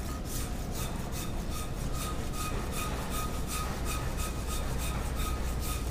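Flat hand rasp scraping a plaster positive model of a transfemoral prosthetic socket in quick repeated back-and-forth strokes, about three to four a second, shaving plaster off to reshape the socket's brim.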